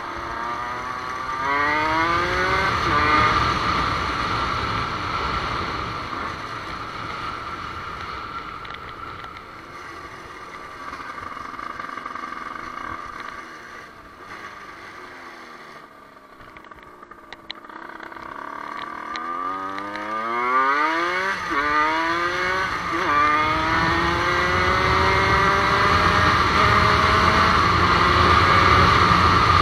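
Motorcycle engine accelerating through the gears, its pitch climbing and dropping back at each shift. It eases off and goes quieter for several seconds in the middle, then pulls up through the gears again and settles into a steady cruise.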